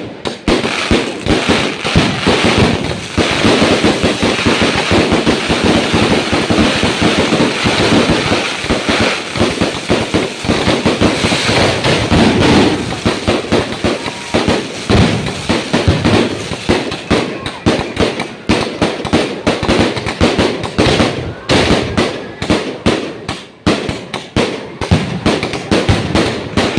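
Fireworks going off in quick succession: a dense, continuous crackle of bangs and pops, thinning after the middle into more separate bangs.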